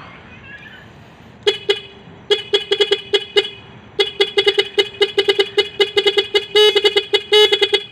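NHAY PRO electric bike horn playing its fourth tone pattern: rapid runs of short toots at one steady pitch, starting about a second and a half in, pausing briefly near the middle, then carrying on.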